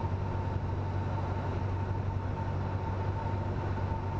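Cessna 172N's engine and propeller droning steadily at reduced power on final approach, heard inside the cockpit. A thin steady high whine sits over the hum.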